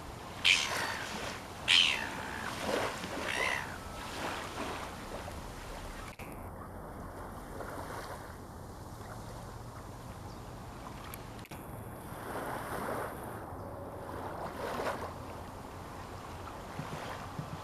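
Loud, harsh shorebird calls: two sharp piercing cries near the start, a few weaker ones just after, and more further on. Steady wind and surf lie underneath.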